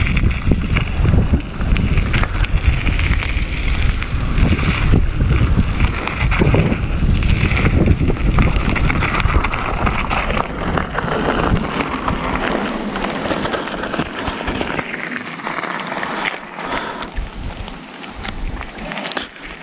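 Mountain bike descending a loose gravel trail: tyres crunching over gravel and the bike rattling, under heavy wind buffeting on the microphone. The low wind rumble drops away in the second half.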